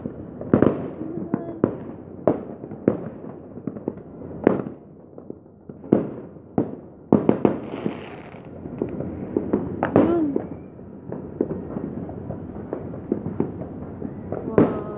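Many fireworks going off at once: loud sharp bangs at uneven intervals, with many fainter, more distant pops and crackles in between.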